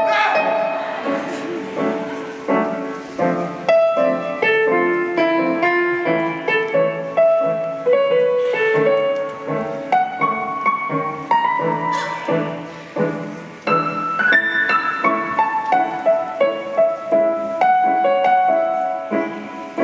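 Piano music: a melody of short, separate notes moving from pitch to pitch.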